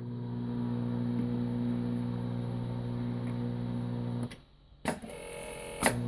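A machine running with a steady electric hum, which drops out briefly about four seconds in, followed by two sharp clicks about a second apart near the end.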